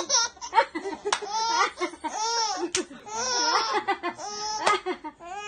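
A three-and-a-half-month-old baby laughing out loud, among its first laughs, in a string of short laughs.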